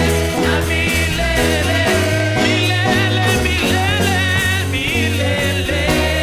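Upbeat gospel praise-band music from a Swahili praise song: a bass line moving note by note under a gliding lead melody.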